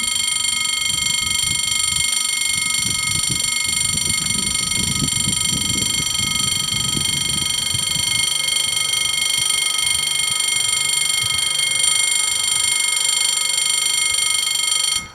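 Level-crossing warning bells ringing continuously with a fast, even high-pitched ring, warning that the crossing is closing. The ringing stops suddenly near the end.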